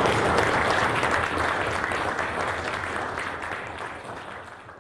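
Audience applauding, a dense clatter of many hands that fades away gradually toward the end.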